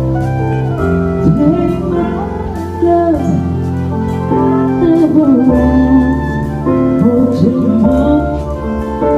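Music with a singing voice, held sustained notes and a steady beat.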